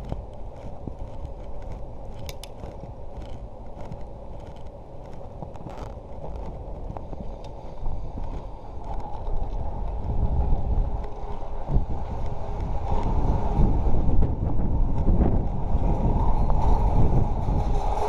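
Bicycle riding along: tyres rolling on paving and then tarmac, with light regular clicks in the first half. Wind rumbles on the microphone, growing louder from about halfway through.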